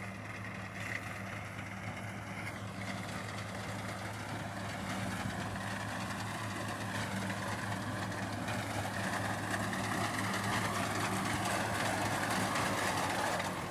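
Tractor diesel engine running steadily under load, driving a front-mounted reaper through standing wheat, getting slowly louder as it comes closer.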